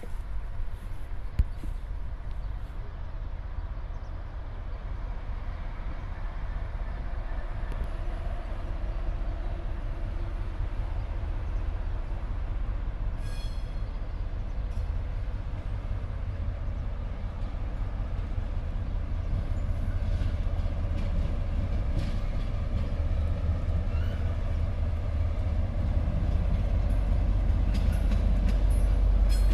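Train running past, a steady low rumble that grows gradually louder as it comes closer, with a single sharp click about a second and a half in.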